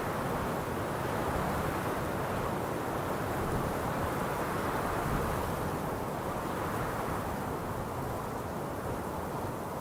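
Steady wind blowing, a continuous rushing noise weighted toward the low and middle pitches that eases slightly in the second half.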